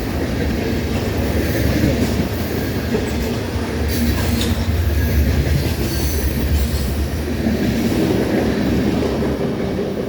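Freight cars of a mixed manifest train rolling past: a steady rumble of steel wheels on rail, with a few sharp clicks about four seconds in.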